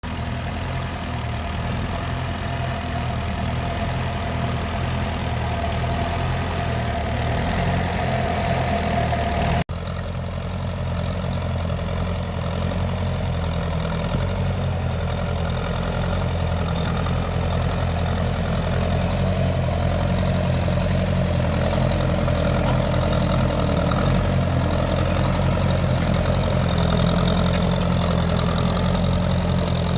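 Massey Ferguson T20 tractor engine running steadily, with a brief break about ten seconds in.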